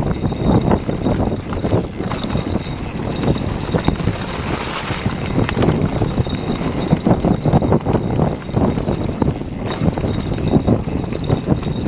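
Specialized Demo 8 downhill mountain bike riding fast over a rough dirt trail: tyres rumbling on the ground with a constant irregular clatter of the bike rattling over bumps and roots.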